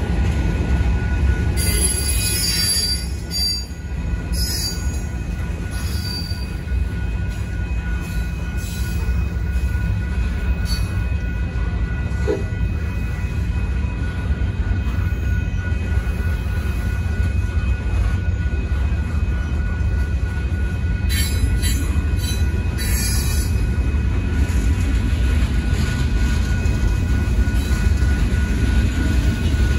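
Freight cars of a Union Pacific manifest train rolling slowly through a grade crossing under a slow order: a steady low rumble of wheels on rail, broken by high-pitched metallic squeals about two seconds in and again a little past twenty seconds in.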